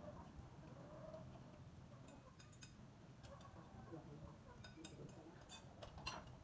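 Quiet, scattered clicks and clinks of chopsticks and tableware against bowls and plates as people eat, a few in the middle and several more near the end.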